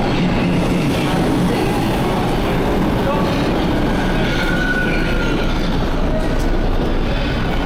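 Subway train running through the station with a steady rumble, and a faint high wheel squeal rising about four seconds in and again near the end.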